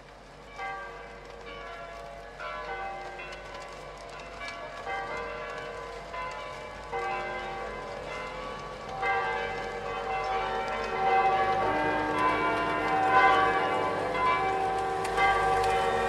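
Music of ringing, bell-like struck notes that layer into held chords, growing louder and fuller.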